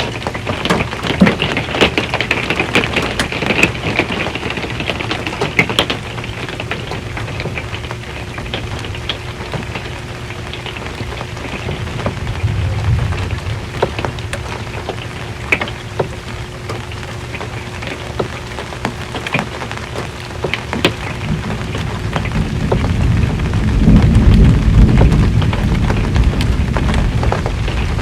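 Rain falling on an RV's metal roof: a steady patter with sharp individual drop strikes. About twenty-two seconds in, a low rumble of thunder swells up and carries on to the end.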